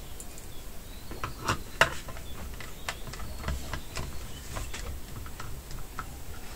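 Scattered small clicks and taps of a screwdriver and screws against a metal drive adapter bracket as an SSD is screwed into it, loudest a little under two seconds in.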